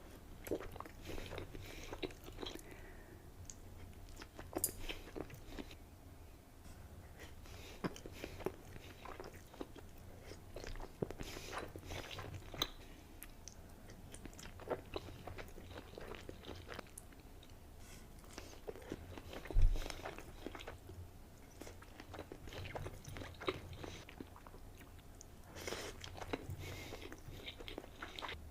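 Close-miked biting and chewing of sushi, with scattered crisp crunches throughout. One louder thump comes about two-thirds of the way in.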